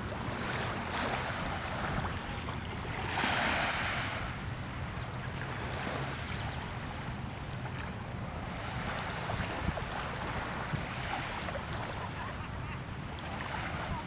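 Small waves washing onto a pebble shore, with wind rumbling on the microphone; one louder wash comes about three seconds in.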